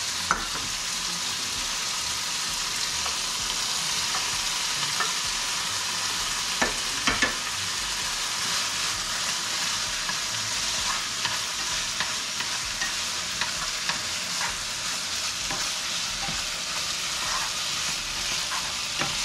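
Chicken pieces sizzling steadily in hot oil in a frying pan over high heat as they are stir-fried, with a few sharp clicks of a utensil against the pan.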